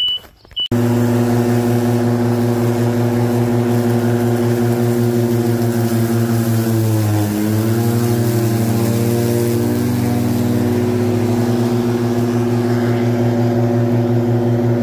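Ryobi RM480e electric riding mower's blade motors humming steadily while cutting tall grass. It starts under a second in, and about halfway through the pitch sags and climbs back as the blades bog down briefly under the load.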